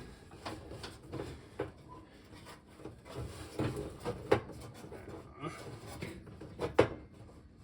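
Scattered light knocks, clicks and rattles of hands working among the sheet-metal panels inside a gas oven, with faint rustling between them; the sharpest knocks come a few seconds in and again near the end.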